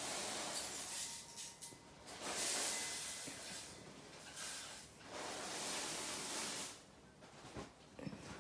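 Hands rustling fabric and a thin strip of Bondaweb fusible web as it is laid along a fabric edge and the fabric is folded over and smoothed down. The rustle comes in three soft swishing spells, with a couple of small ticks near the end.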